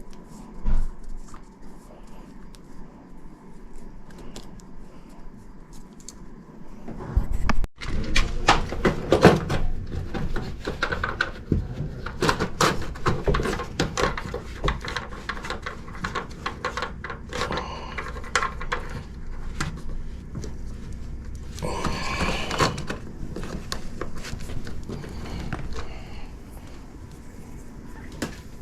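Installation work: irregular knocks, clicks and clatter of tools and parts being handled over a steady low hum, with a short hiss a little after two-thirds of the way through.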